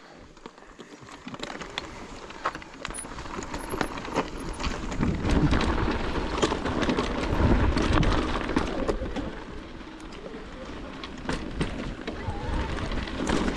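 Electric mountain bike riding down a dirt-and-rock trail: a steady rushing of tyres and air, with many quick knocks and rattles from the bike over the ground. It is loudest through the middle.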